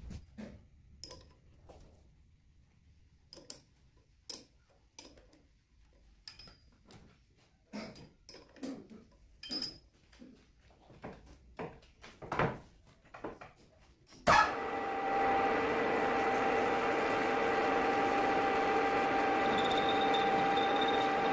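Metal lathe: scattered light metallic clicks and knocks as the four-jaw chuck is turned and set by hand, then about two-thirds through a sharp clunk as the spindle is switched on, after which the lathe runs steadily with a whine of several even tones.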